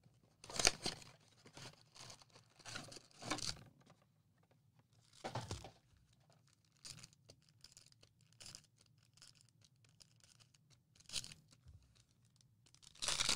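Packaging on a trading-card blaster box being torn open and crinkled: a few short ripping tears with quieter rustling in between.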